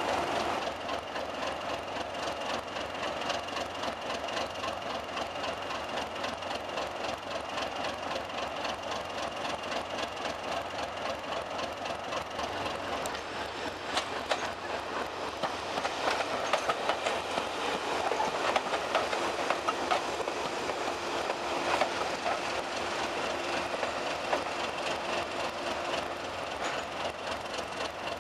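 Diesel railway engines running with a steady, even throb, and a diesel multiple unit moving over the track about halfway through, with wheels clicking over rail joints.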